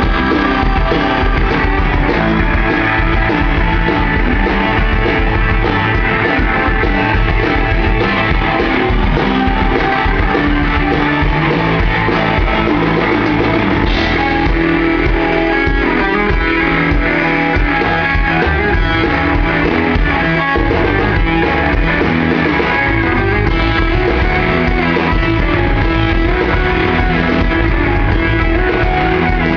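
Live rock band playing an instrumental passage: electric guitar over bass guitar and a drum kit.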